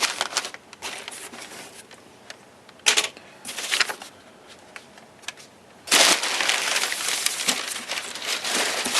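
Cardboard-and-plastic packaging of a plastic model kit being handled and opened: scattered rustles and clicks, a sharp crack about three seconds in, then loud, continuous crinkling from about six seconds in.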